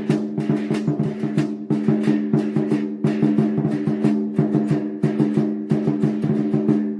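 Chinese lion dance percussion: a large drum beaten in a fast, driving rhythm with bright metallic clashes, over a steady ringing tone.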